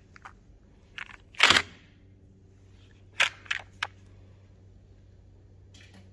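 Plastic boxes of carbide lathe inserts being handled and swapped in a drawer of insert boxes: a loud, short clattering rustle about one and a half seconds in, then three sharp plastic clicks a little after three seconds. A steady low hum runs underneath.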